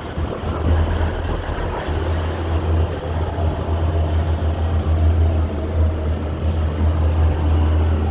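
Steady low rumble and hum inside a Disney Skyliner gondola cabin as it travels along its cable, with a faint rushing noise over it.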